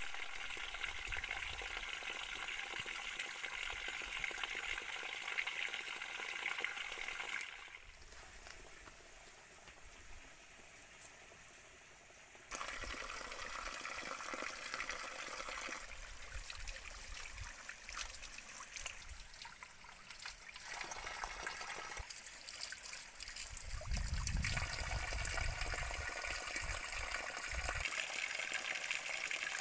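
A thin stream of water trickling and splashing from a bamboo spout onto rocks. It is a steady hiss whose level drops and then jumps back abruptly.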